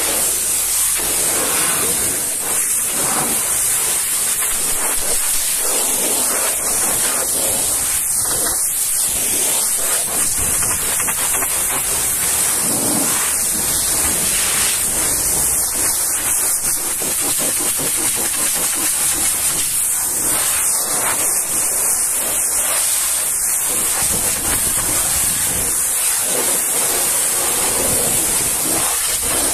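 High-pressure washer jet spraying water against a truck's panels, mudguard and wheel: a steady, loud hiss.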